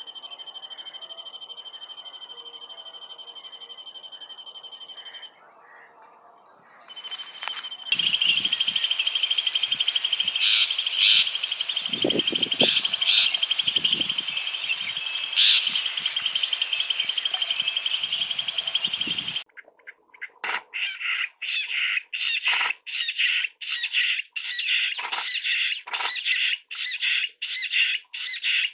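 Jungle bush quail calling: after a cut about two-thirds of the way in, a rapid run of sharp repeated notes, about two or three a second. Before that comes a steady high-pitched trill, then a buzzing trill with a few scattered bird notes.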